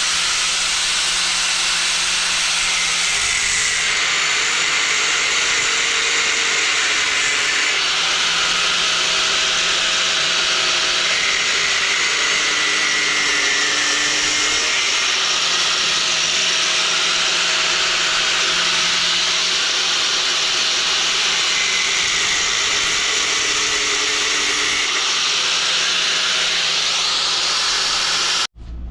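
Angle grinder cutting through the protruding stainless steel bolt ends to trim them flat: a loud, steady hiss of grinding metal that cuts off suddenly near the end.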